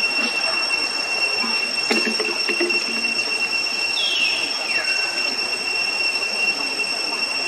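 Tropical forest ambience: a steady high-pitched insect drone, with a single descending whistled call about four seconds in and a sharp click near two seconds.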